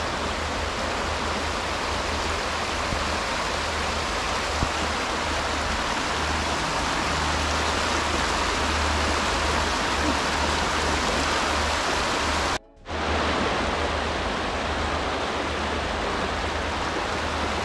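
Fast-flowing river water rushing steadily, a constant dense hiss, broken once by a split-second dropout about two-thirds of the way through.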